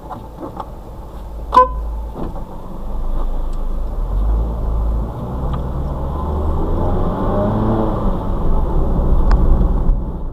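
A car running, growing louder from a few seconds in and rising in pitch near the end, with a brief sharp beep-like sound about a second and a half in.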